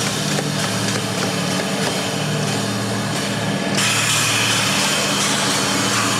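Cementing pump truck's diesel engine idling steadily. About four seconds in, a sharp, steady hiss suddenly starts and keeps on over the engine.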